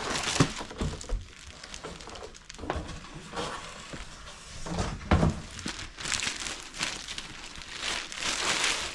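Plastic packaging crinkling and rustling as an unboxed item is handled, with a few soft knocks, the loudest about five seconds in.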